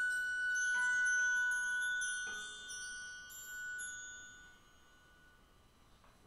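Sparse, high, bell-like notes from the chamber ensemble, each struck or plucked and left to ring, dying away about four and a half seconds in.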